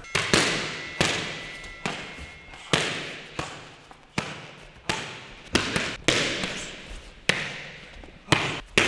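Kicks and punches smacking into a coach's strike pads, about a dozen sharp hits at an uneven pace of roughly one a second, each echoing briefly in the gym hall.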